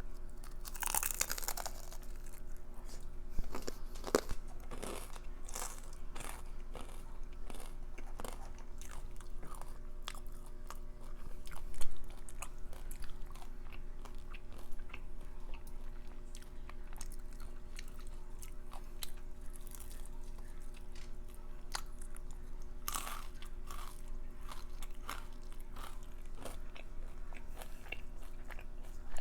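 Close-miked chewing with crisp crunches and small wet clicks of food in the mouth, one crunch louder about twelve seconds in.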